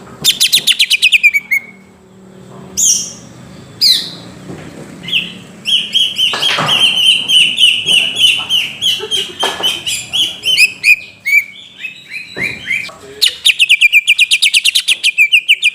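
Greater green leafbird (cucak ijo) singing loud, fast trills of repeated down-slurred notes in three runs, with single calls between them.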